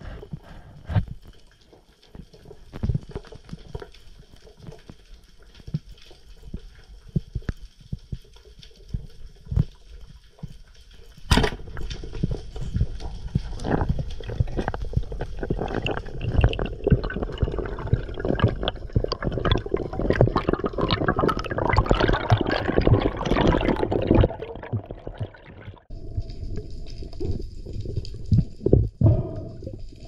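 Underwater sound through a camera housing: a single sharp crack of a speargun shot about eleven seconds in, followed by a long stretch of dense rattling, knocking and sloshing as the speared parrotfish thrashes on the shaft among the rocks. The noise eases off after about twenty-five seconds.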